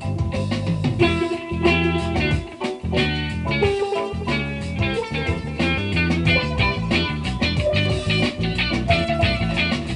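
Guitar music playing back from a cassette through a vintage Kenwood KR-3600 stereo receiver and its loudspeakers, picked up in the room at a fairly high volume.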